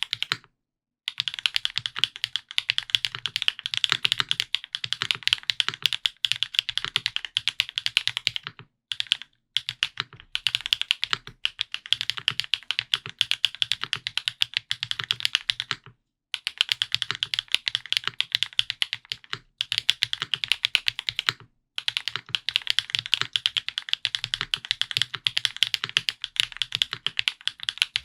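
F2-84 custom mechanical keyboard with lubed Gateron Pure Sky switches, an aluminium plate and GMK Olivia keycaps being typed on quickly. Steady runs of rapid keystrokes, broken by a few brief pauses.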